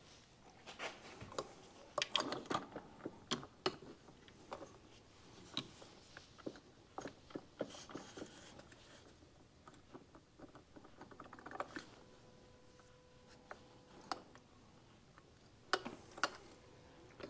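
Faint scattered clicks and light metallic taps as the bare piston of a 1971 Kawasaki F7 175 two-stroke engine is handled and rocked by hand on its connecting rod.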